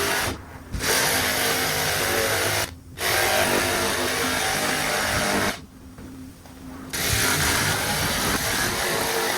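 Rapid, clattering power-tool and workshop noise, sped up in a time-lapse of woodworking. It drops out abruptly three times at edit cuts, the longest gap about six seconds in.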